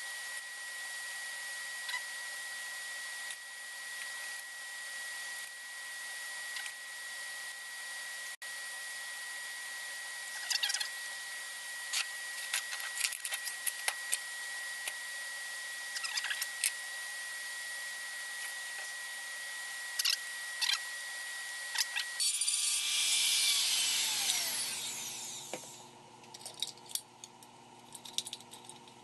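A power tool motor running steadily with a constant high whine, with scattered clicks and knocks. About 22 s in it gets louder, then falls in pitch and dies away as the motor winds down. Light clicks and knocks follow.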